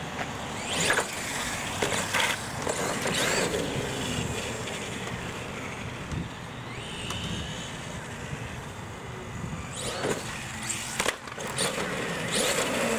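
Radio-controlled monster truck driving on concrete: its tyres rolling and scrubbing over the hard surface under the motor, with several sharp knocks spread through.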